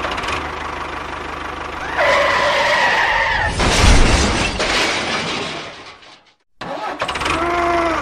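An engine running, with a whining tone for about a second and a half about two seconds in and a louder noisy stretch after it; the sound cuts out briefly about six seconds in, then resumes.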